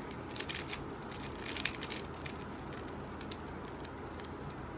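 Rubik's cube being turned by hand: quick plastic clicks and rattles of the layers turning, clustered in the first two seconds, then a steady low background hum.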